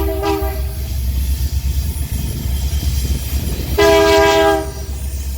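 A freight locomotive's air horn gives two blasts, each several steady notes sounded together. The first is short, right at the start; the second is longer and louder, just before the 4-second mark. A steady low rumble from the train runs beneath both.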